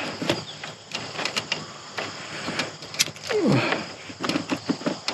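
Scattered small clicks and handling noises of hand work with a lighter and wire splices during heat-shrinking. About three and a half seconds in there is a short falling vocal sound.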